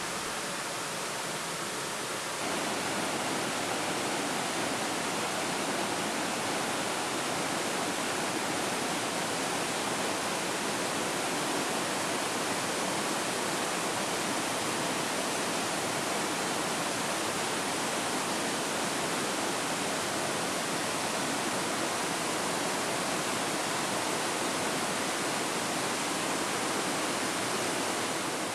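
A waterfall: white water rushing steadily down a steep rocky cascade, with a slight shift in tone about two seconds in.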